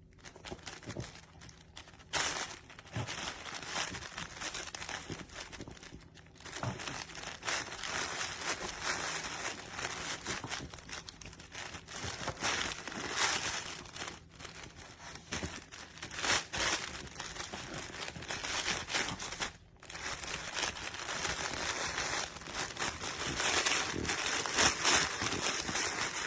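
Crinkly fabric chip-bag puzzle toy rustling and crinkling as a dog noses through it and pulls out the treat-filled fabric chips. The crinkling comes in irregular stretches with short pauses, one near the start, one about six seconds in and one about twenty seconds in.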